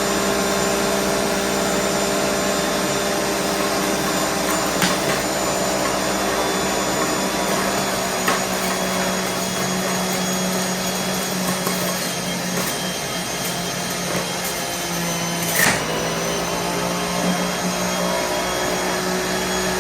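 NutriBullet centrifugal juicer's motor running steadily on low speed as turmeric is fed in, a constant motor whine. A few brief clicks or knocks come through it, the loudest about three-quarters of the way in, and the motor's pitch dips slightly after that.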